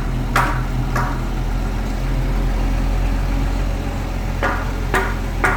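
Truck engine idling steadily, with several sharp knocks over it: two in the first second and three close together near the end.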